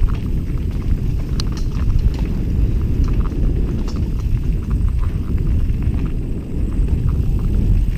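Wind noise on a helmet-mounted camera's microphone as a mountain bike rolls down a rocky dirt trail, with scattered clicks and rattles from the bike and its tyres over stones and gravel.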